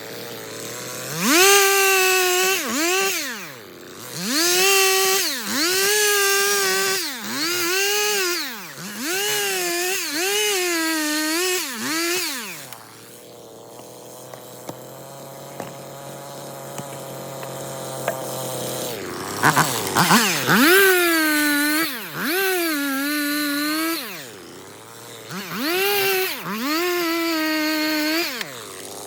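Stihl MS 250 two-stroke chainsaw cutting firewood: it revs hard in repeated bursts, the pitch sagging and recovering within each as the chain works through the wood. It drops back to a steady idle for several seconds in the middle, then revs up again with a few sharp clicks.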